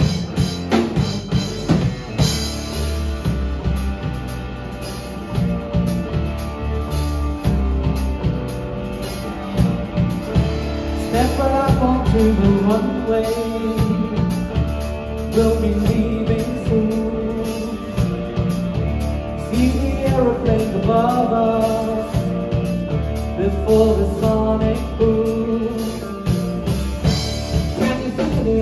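Live progressive rock trio playing: drum kit, bass and electric guitar, with a voice singing from about eleven seconds in.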